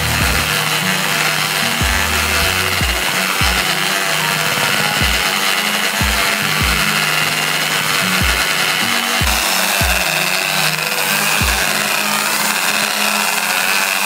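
Corded electric drill running steadily with a round wire brush, scouring gravel and a little water around inside a coffee maker's water chamber to grind off rust. Background music with a steady beat plays underneath.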